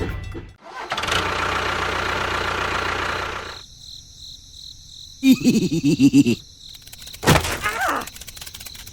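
A small engine running steadily, then stopping about three and a half seconds in. A short warbling pitched sound follows, then a sudden knock.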